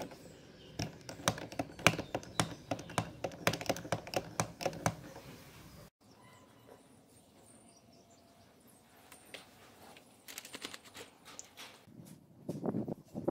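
Light plastic clicks and taps, several a second and irregular, from the PVC hydraulic jack's pump handle being worked by hand, stopping abruptly about six seconds in. Near the end there are scattered softer clicks and a short burst of handling noise.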